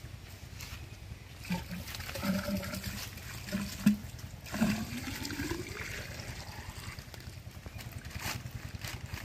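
Water being poured from a bucket into the open suction pipe of a pumping set, gurgling with bubbly blips and a rising pitch as the pipe takes it in: priming the pump. A low steady rumble runs underneath.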